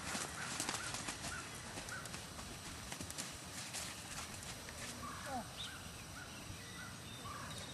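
A Warmblood-Thoroughbred gelding's hooves clip-clopping on a dirt arena at a trot. The beats thin out about three seconds in as the horse drops to a walk.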